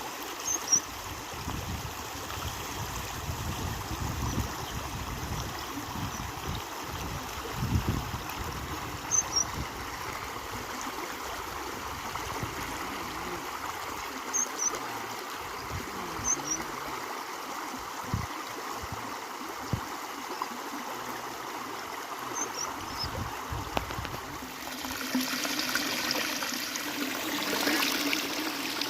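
Water flowing steadily, with a few short high chirps now and then. About four-fifths of the way through, a louder sound with a steady low hum joins in.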